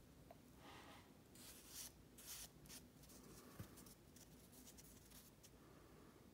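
Faint rustling and crinkling of a small folded paper packet, soaked with oil, as it is rubbed and turned in the fingers, with a few soft rustles about one to three seconds in over quiet room tone.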